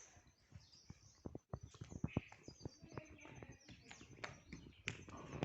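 Birds chirping, with a run of irregular sharp clicks and knocks starting about a second in.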